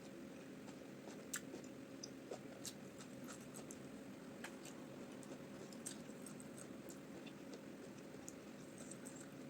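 A person eating peanut soup with omotuo rice balls and meat: faint, scattered mouth clicks and smacks over a steady low hum.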